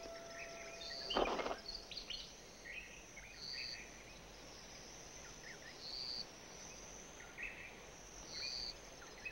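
Faint natural bush ambience: a steady high insect drone, with short high chirps repeating every two to three seconds and scattered bird chirps. A short louder burst comes about a second in.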